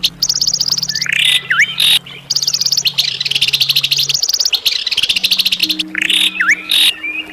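Songbird singing in long, rapid, high-pitched trills, broken twice by a short sharp phrase with a quick downward-and-up sweep, about a second and a half in and again near six and a half seconds. A steady low hum runs underneath.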